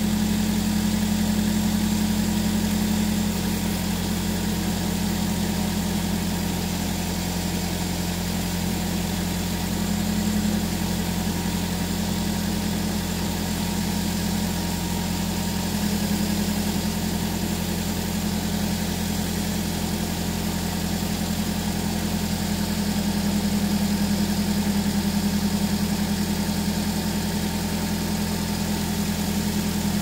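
Subaru Sambar TT2 kei truck engine idling steadily, heard close at the open engine bay, with a constant low hum while its air-conditioning system is being charged with a refrigerant oil additive.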